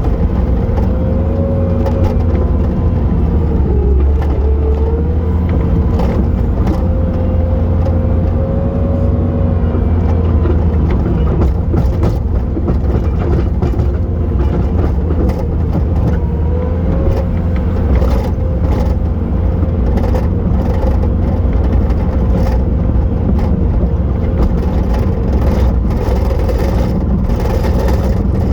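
Bobcat T870 tracked loader's diesel engine running under load, a heavy steady drone with a whine that dips and rises as the machine works. In the second half there are repeated knocks and clatters.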